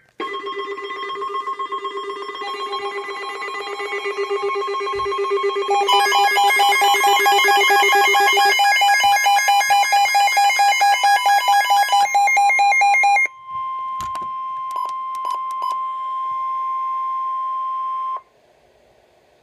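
Electronic emergency-alert tones. Several layered, rapidly pulsing beeps build up in stages for about thirteen seconds, then a single steady alarm tone of about 1 kHz holds for about five seconds and cuts off. That steady tone is typical of the NOAA Weather Radio warning alarm that comes before a weather warning.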